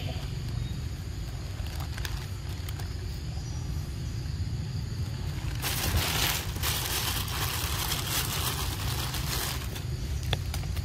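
Steady low rumble with a few sharp clicks, and about four seconds of loud rustling hiss in the middle while the handheld camera is moved.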